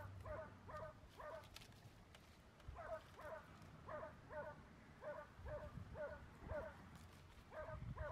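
Faint animal calls: short pitched notes repeated in runs of two to four at about three a second, with a pause of about a second about one and a half seconds in.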